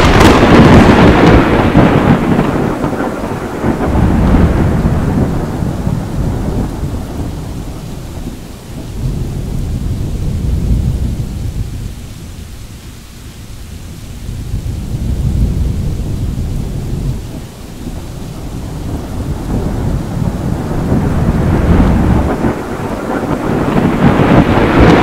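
Thunder: a loud rolling rumble from a close lightning strike that starts loud, fades, then swells again several times and builds up loud again near the end.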